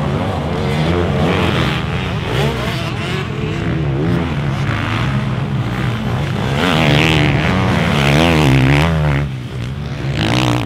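Motocross dirt bikes racing, two or more at once, their engines revving up and falling off as the riders brake into and accelerate out of corners. Loudest about seven to nine seconds in.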